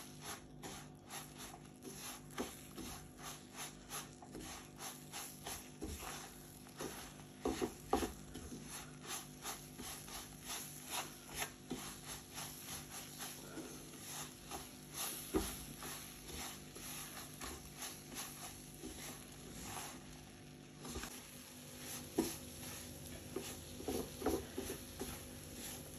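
Silicone spatula scraping and stirring semolina and cream in a nonstick frying pan, in short repeated strokes about two a second, over a faint steady hum.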